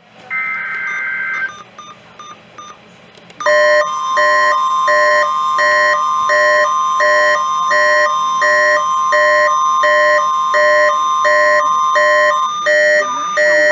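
Emergency alert broadcast tones: a short burst of two-pitch data tones, then a steady single-pitch alert tone for about nine seconds. A pulsing electronic alarm beeps over it about one and a half times a second, and the beeping goes on alone after the steady tone stops near the end.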